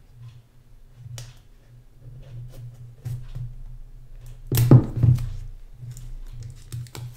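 Kitchen knife slitting the cellophane shrink-wrap on a small cardboard box, with light scratching clicks and plastic crinkling. There is a louder knock and crinkle about four and a half seconds in.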